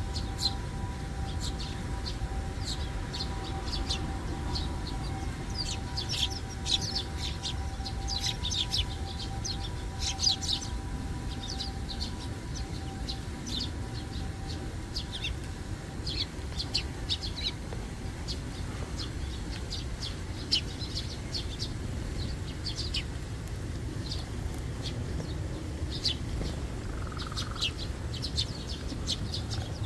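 A flock of Eurasian tree sparrows chirping: many short, high chirps all through, busiest in the first half and again near the end.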